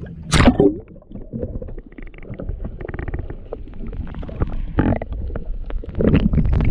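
Muffled underwater rumbling and gurgling of water moving against a GoPro held below the surface, with a loud rush of water about half a second in and further surges near the end.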